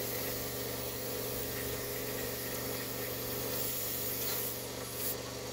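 Aerosol brake cleaner sprayed in one long steady hiss onto brake parts, cutting off abruptly about five seconds in, over a steady background hum.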